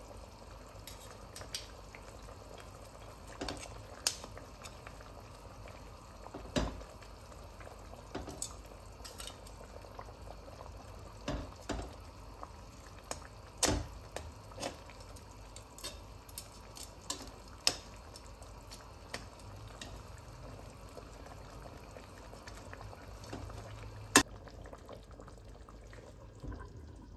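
Tomato and beef-stock braising sauce simmering in a heavy pot, bubbling softly, with scattered clicks and pops as metal tongs work the osso buco in the pot. One sharp click near the end.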